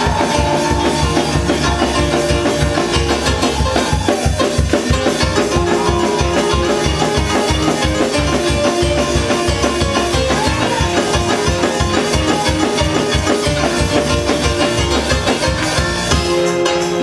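Up-tempo church praise music with a fast, steady drum and bass beat under sustained keyboard-like notes; the bass drops out near the end.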